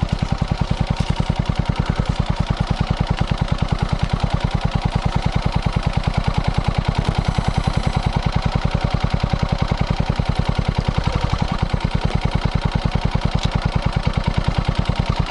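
Kawasaki Eliminator 125's single-cylinder four-stroke engine idling steadily, an even chuff of about a dozen exhaust pulses a second, heard from a microphone mounted just behind the muffler outlet.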